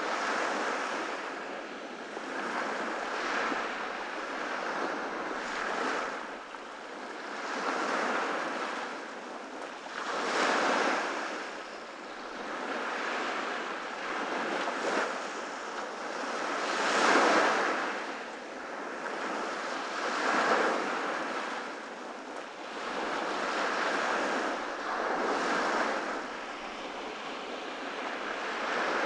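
Ocean waves breaking on a beach, the surf swelling and easing every few seconds, with a louder break around the middle.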